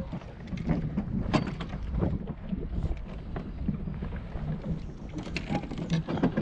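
Wind rumbling on the microphone over water lapping against a floating dock, with scattered sharp clicks and knocks from fishing rod and tackle being handled on the deck, thickest about a second in and again near the end.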